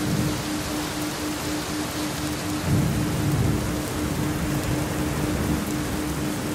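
Steady rain, with a low rumble swelling about three seconds in. Under it runs a low steady tone pulsing about four times a second: a 4 Hz theta isochronic beat.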